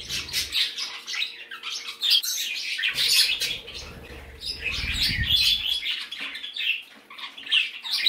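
A room full of small pet parrots, budgies and parakeets among them, chirping and squawking in many short, overlapping calls.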